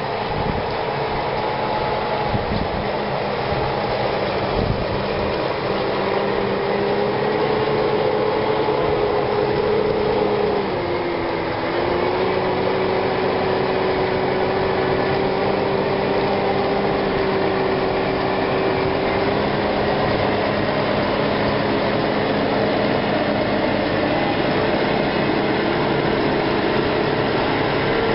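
A large Case IH tractor's diesel engine running steadily under load as it pulls a reversible plough. Its note dips about ten seconds in, then picks up again later.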